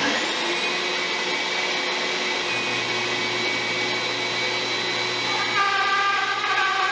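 A bandsaw and its attached dust-collection vacuum switch on and run steadily with a high whine. About five and a half seconds in, the blade starts cutting into a western red cedar paddle blank, adding a pitched cutting sound over the running machines.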